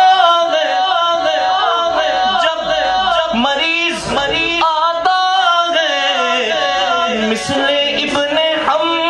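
Male voice singing a naat in a drawn-out line, with long held notes that slide and waver in pitch.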